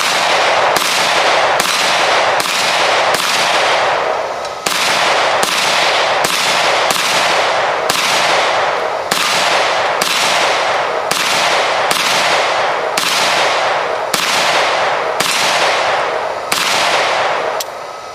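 Gunshots fired one at a time at a steady pace, about twenty shots at a little more than one a second, each followed by a ringing echo.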